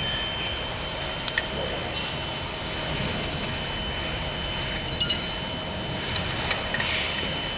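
Steady mechanical hum and hiss with a constant high whine, broken by a few light metallic clicks and clinks, a couple about a second in and a short cluster near the middle.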